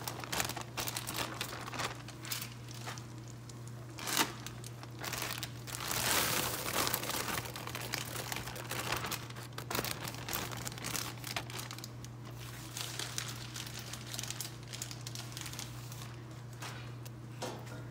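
Plastic bags of mini marshmallows crinkling and crackling as they are shaken out into a large pot, the marshmallows dropping in. The crackles come irregularly, with the sharpest about four seconds in, over a steady low hum.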